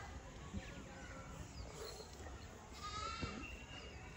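Goat bleating faintly, the clearest bleat about three seconds in.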